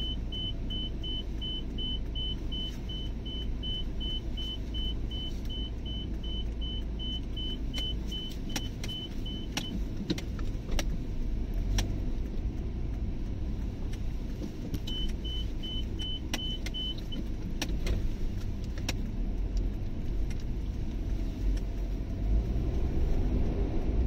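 Inside a moving car: steady low road and engine rumble, with an electronic beep repeating about three times a second that stops about ten seconds in and comes back briefly around fifteen seconds. Scattered light knocks and clicks are heard in the second half.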